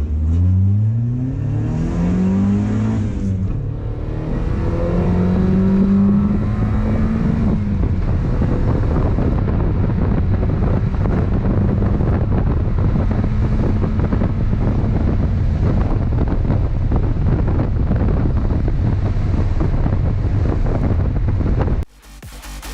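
Mazda Miata's four-cylinder engine accelerating, its revs climbing and dropping back several times in the first few seconds as it shifts up through the gears. It then settles into a steady drone of engine and road noise while cruising, which cuts off suddenly near the end.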